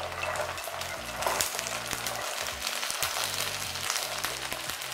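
Green peas sizzling and crackling as they are tipped from a steel bowl into hot oil with fried onions in a wok.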